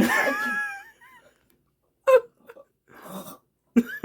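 A person's high, drawn-out whine of disgust that falls in pitch over about a second, followed by short gagging, breathing and throat noises while forcing down a mouthful of dog food.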